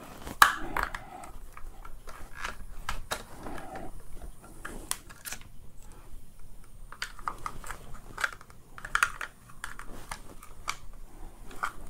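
Irregular small clicks and taps of hard plastic parts of a Dyson V10 cordless vacuum being pried at with a flat screwdriver and handled on a bench, with a sharper knock about half a second in.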